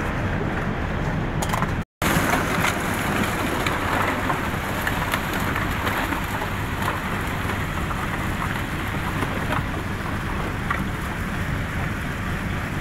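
Steady drone of a river vessel's engine, with a dense crackling of broken ice floes grinding against the hull as it moves through ice. The sound cuts out for an instant about two seconds in.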